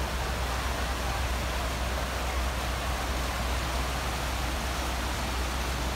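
Fast floodwater rushing and churning, a steady hiss with a constant low rumble beneath it.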